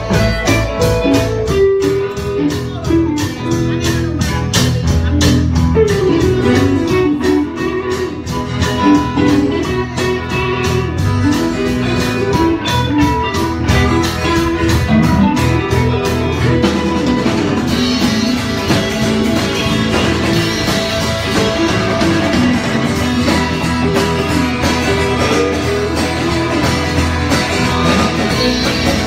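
A band playing blues-rock: an electric guitar picks a winding melodic line over guitar chords and a steady drum beat.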